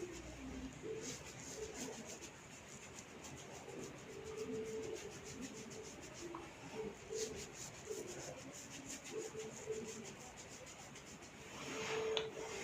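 Fingers rubbing through hair and over the scalp, with a scatter of small sharp clicks as strands of hair are gripped, tugged and snapped between the fingers in the cetut rambut massage. It gets louder near the end.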